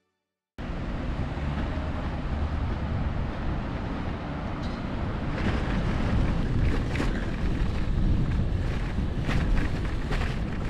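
Wind buffeting the microphone outdoors: a steady low rumble that starts abruptly about half a second in, with a few light taps in the second half.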